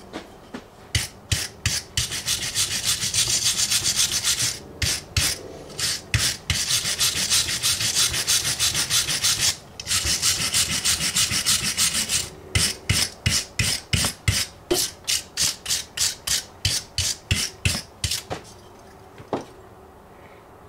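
Rapid back-and-forth scraping with a hand tool on the top of a lead-acid ATV battery. It comes in runs of several seconds, then in separate strokes about three a second that stop shortly before the end.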